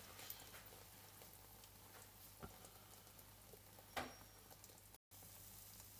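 Near silence: the faint crackle of an egg-and-potato tortilla frying in a nonstick pan, with a few soft ticks and a low steady hum. The sound cuts out for a moment about five seconds in.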